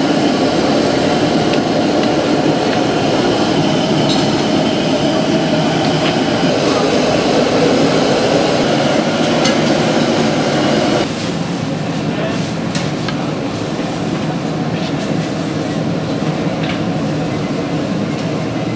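Steady rumbling hiss of a large pot at a rolling boil over a gas burner. It turns a little quieter about eleven seconds in, after which there are a few light clicks.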